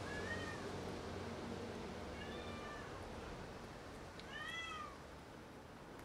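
A cat meowing three times, short calls each rising and then falling in pitch, the last the loudest.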